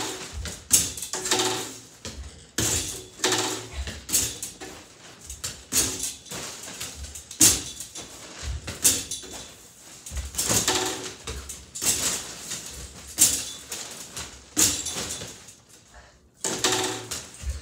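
Mini basketballs repeatedly knocking against a home arcade basketball game's backboard and rims and dropping back onto its net return ramp. The knocks are sharp and uneven, about one every second.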